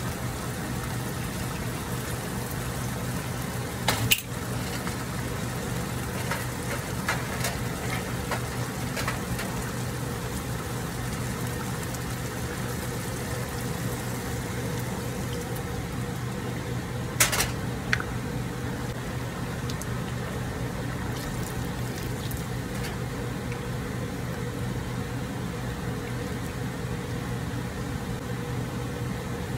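A pan of tomato soup bubbling on an electric stove over a steady low hum, with roasting-tray juices poured into it partway through. Sharp knocks of cookware come a few seconds in and again past the middle.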